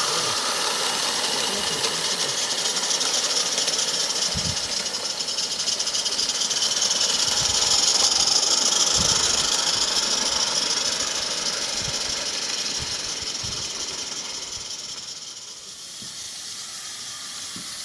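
Live-steam garden-railway locomotives hissing steam as they pass, with a few faint low knocks. The hiss swells about halfway through, then fades as the trains move off.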